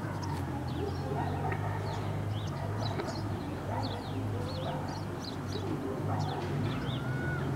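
Outdoor ambience: many short bird chirps, some sweeping downward, scattered over a low, steady hum.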